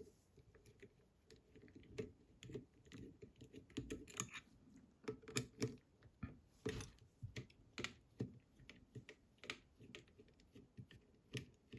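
Faint, irregular small clicks and taps of a screwdriver and metal lock parts as screws are taken out of a Fichet 666 lock's housing.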